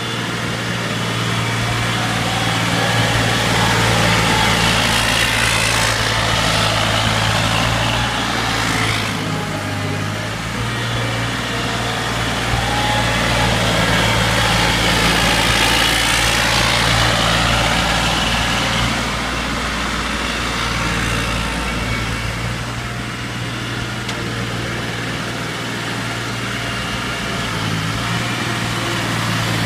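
UNC 060 mini skid-steer loader's engine running steadily as the loader drives and manoeuvres. Its hum grows a little louder and softer as it moves about.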